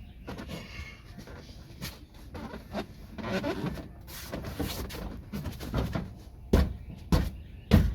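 Scraping and rustling of car interior parts being handled and fitted, then three sharp thumps in the last second and a half.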